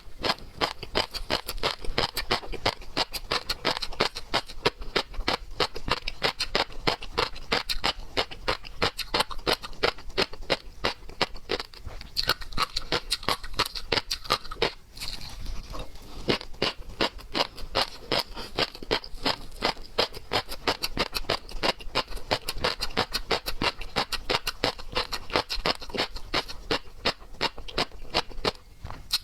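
Close-miked eating sounds of seafood being chewed: a rapid, continuous stream of wet clicks and smacks from the mouth, with only a brief lull about halfway through.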